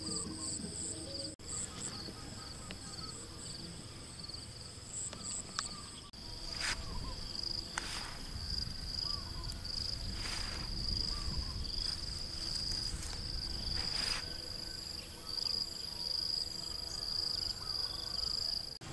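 Insects in the grass trilling steadily, a continuous high-pitched buzz with a pulsing chirp above it. A few short rustles and a low rumble on the microphone sound under it.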